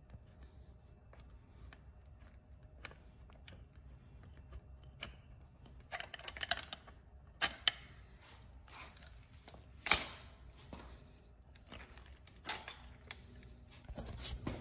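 Light metallic clicks and clinks of a socket on an extension bar as a bolt is turned out by hand and removed from the engine, with a quick run of clicks about six seconds in and a few sharper clacks after it.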